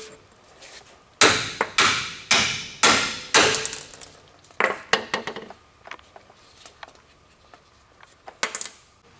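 Hammer blows on steel, knocking the cut-through lower control arm bolt out of its mount on a Dodge Ram. First comes a run of five ringing strikes about half a second apart, then two more, and a last pair near the end.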